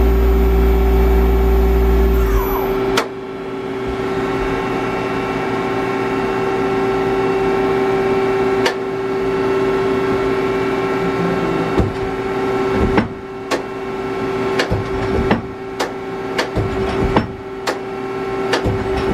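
2011 Star SG-42 Swiss-type CNC automatic lathe running, with a steady hum and tone throughout. A heavy low rumble stops about two and a half seconds in. Sharp mechanical clicks come now and then, and about once a second in the second half.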